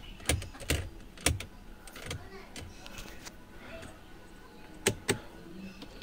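Sharp plastic clicks from the car's headlight combination switch stalk being worked between dipped and main beam: three in the first second and a half, then two close together near the end. The switch is faulty, and main beam does not come on.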